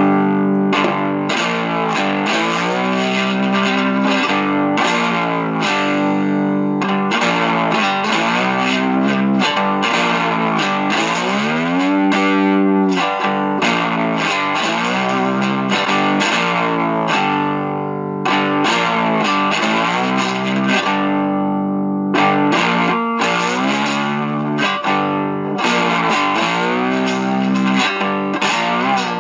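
Solo electric guitar tune played with a slide through a small Vox amplifier, notes gliding up and down between picked runs, with a brief drop-out a little past the middle.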